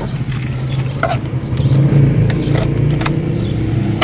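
United Bravo's 800cc petrol engine idling, heard from inside the cabin, rising slightly in the middle and settling again. A few light clicks from handling around the gear lever.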